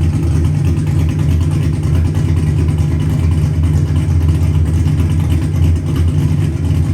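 Car engine and exhaust giving a steady, low drone, with no clear revving.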